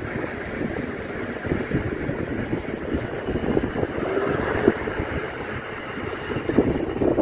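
South Western Railway Class 450 Desiro electric multiple unit running past: a steady rumble of wheels on rail, with scattered short knocks from the running gear and a faint short tone a little past halfway.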